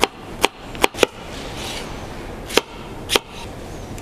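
Kitchen knife chopping on a wooden cutting board: about six sharp knocks at an uneven pace, with a pause of over a second after the fourth.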